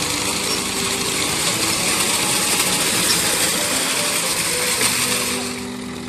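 Tractor-mounted wheat reaper running in the field, a loud, dense mechanical noise of engine and cutter. Background music plays faintly underneath, coming through more plainly as the machine noise drops back about five and a half seconds in.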